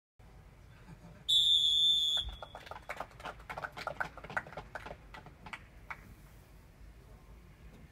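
A referee's whistle blows once, about a second long, followed by a few seconds of scattered handclapping.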